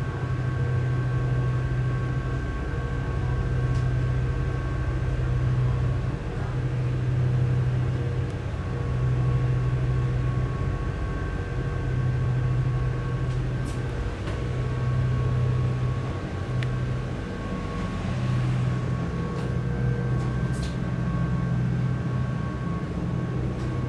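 Steady low drone of a high-speed ferry's engines heard inside the passenger cabin, swelling and fading every two to three seconds, with a thin steady whine above it.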